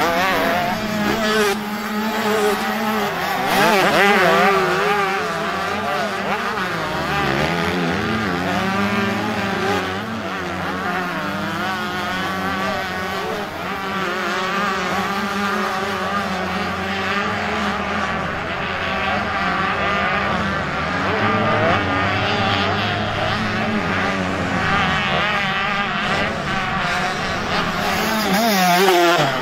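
Several motocross bikes racing together, their engines revving up and down over one another as riders work the throttle around the track.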